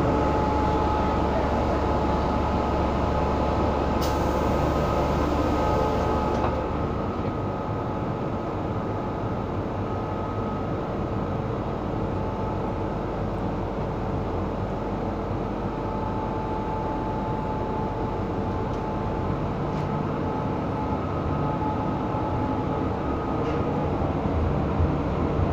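MTR M-Train subway car running, heard from inside the carriage: a steady rumble with a few steady tones over it. A high hiss joins about four seconds in for a couple of seconds, after which the low rumble eases slightly.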